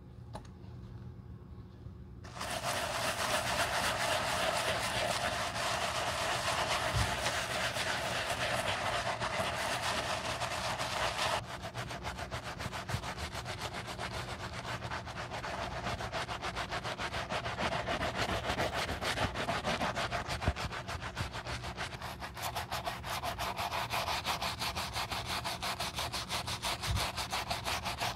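Wooden-handled bristle brush scrubbing lathered cleaner into the worn leather upper of a slipper, in quick back-and-forth strokes starting about two seconds in.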